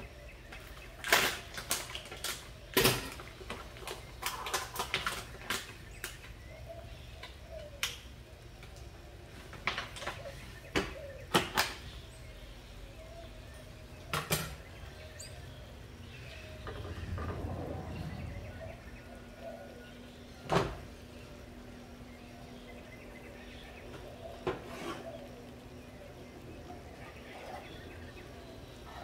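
Kitchen clatter: scattered clinks and knocks of utensils, dishes and pans on a counter and gas stove, most frequent in the first half. A faint steady hum comes in past the middle.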